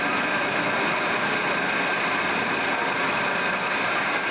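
A spinning amusement ride running steadily as its cars whirl around on their arms: an even mechanical rush with a faint steady whine over it.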